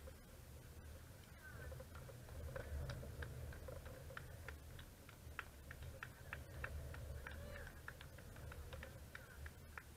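Quiet outdoor background: a low, steady rumble with scattered faint ticks and chirps, a few each second.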